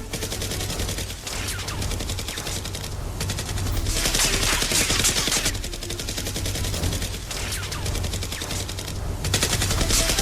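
Sustained rapid gunfire, many closely spaced shots in a continuous fusillade like automatic weapons, as added to a Nerf battle scene.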